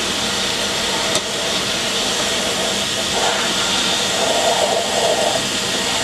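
Vacuum cleaner running steadily on its low setting, its nozzle drawing dust off a guitar speaker's paper cone. The rushing hiss changes tone a little about halfway through as the nozzle moves over the cone.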